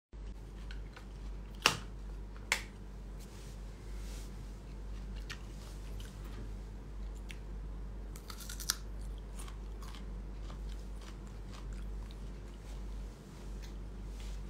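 A person biting and chewing something crunchy close to the microphone, with scattered sharp clicks: two loud ones about one and a half and two and a half seconds in, and a quick cluster around eight seconds in.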